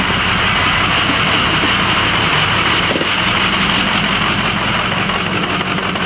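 Ford 6.0-litre Power Stroke V8 diesel idling steadily, running rough because cylinders 6 and 8 are not firing and cylinders 2 and 4 are weak, a misfire traced to the injectors.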